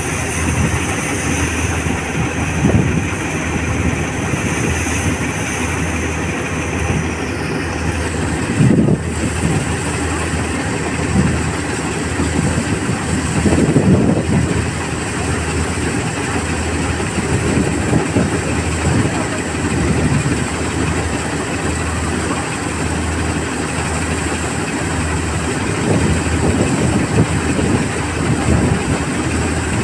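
Preet 987 combine harvester running with a steady mechanical drone while its unloading auger pours threshed wheat grain into a trailer.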